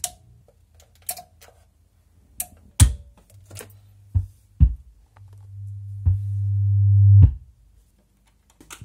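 Sharp clicks and knocks of hands handling hardware, about ten spread over several seconds. A low hum swells from about halfway through and cuts off with a knock.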